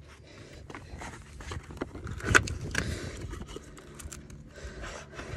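Light clicks and scraping from handling oil filter parts and their packaging, with one sharper click a little past two seconds in.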